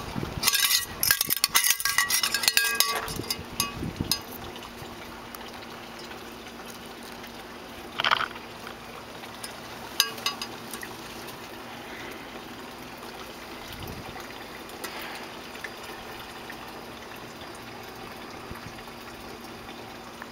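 Steady running water, with the microphone being handled: rubbing and clicks through the first three seconds and a few single knocks later.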